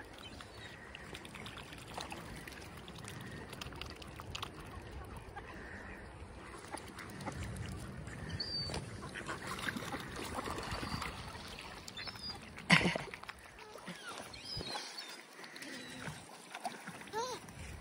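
Ducks quacking and other waterbirds calling as they gather to be fed, with one sharp knock about two-thirds of the way through.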